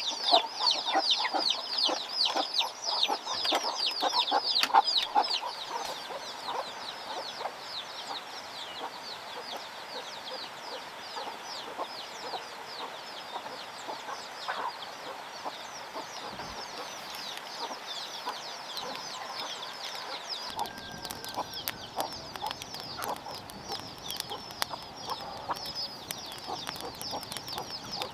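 Chickens clucking and calling, with a dense run of rapid, high, falling calls in the first few seconds. In the last third a wood fire crackles alongside.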